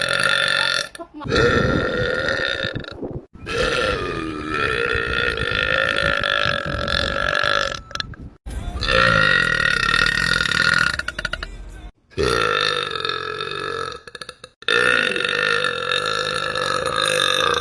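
A woman's long, drawn-out belches, about five in a row. Each lasts two to four seconds, with short breaks between them.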